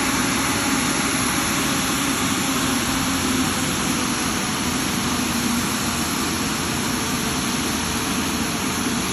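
Airbus A350-1000 with its Rolls-Royce Trent XWB jet engines running: a steady rush of jet noise with a low hum underneath that sinks slightly in pitch over the first half.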